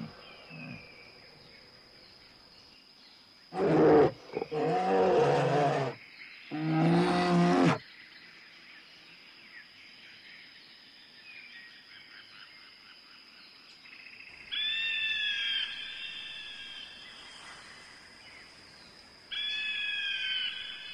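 Wild animal calls: two long, loud, low calls with wavering pitch about four and seven seconds in, then two shorter high-pitched cries later on.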